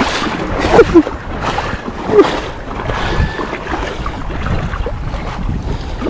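Steady rushing of a fast river, an even noise with a few brief louder sounds about a second and two seconds in.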